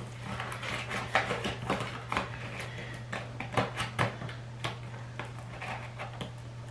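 Cardboard box flaps being folded and tucked shut by hand: a run of rustles, scrapes and small knocks, the sharpest about three and a half and four seconds in, over a steady low hum.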